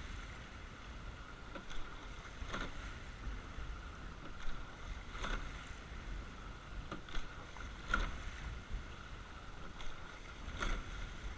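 Rowing eight under way: a knock from the oars and rigging at each stroke, about every two and a half to three seconds, over the steady rush of water along the hull and wind on the microphone.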